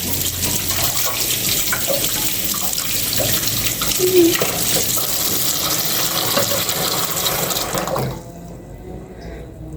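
Water from a tap running steadily into a sink, shut off abruptly about eight seconds in.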